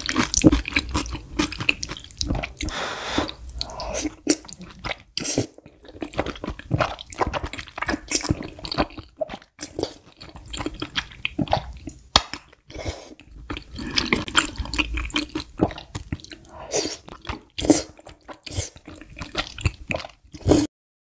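Close-miked wet mouth sounds of someone slurping and chewing saucy noodles: irregular smacks, sucks and clicks.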